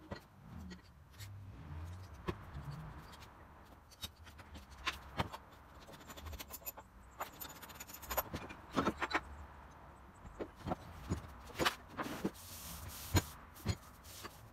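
Cast-iron and steel parts of a Wilton Bullet bench vise being handled on a wooden workbench: scattered metal clinks and knocks with some scraping, in irregular clusters.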